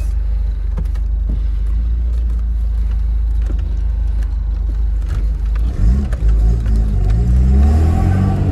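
Tofaş Şahin's four-cylinder engine running through an aftermarket exhaust, a steady low drone at first. About six seconds in it is revved up and down several times, rising and falling in pitch and getting louder.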